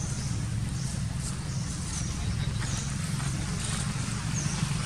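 A steady low mechanical hum, with faint short high chirps every second or so.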